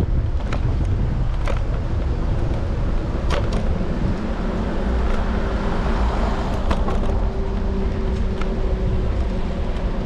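Street traffic heard from a moving electric scooter: a steady rumble of road and wind noise with vehicles passing, broken by scattered sharp clicks and rattles.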